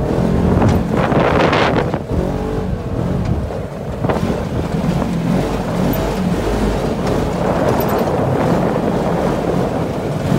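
ATV engine running steadily as it drives a rough dirt trail, with wind noise on the microphone and a few louder gusts in the first two seconds.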